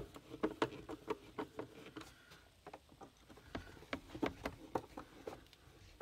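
Faint, irregular small clicks and taps, several a second, as a screwdriver drives small Phillips screws into the plastic case of a solar electric fence charger and hands handle the case.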